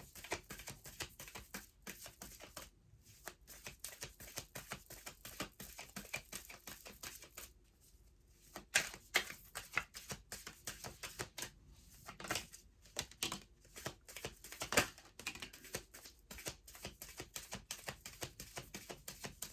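A deck of oracle cards being shuffled by hand: a fast, uneven run of light card clicks and flicks, with a few louder slaps partway through.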